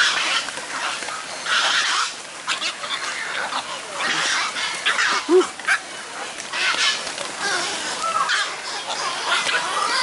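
A flock of storks crowding and flapping around a keeper at feeding time, with repeated bursts of wingbeats and bird noise about once a second.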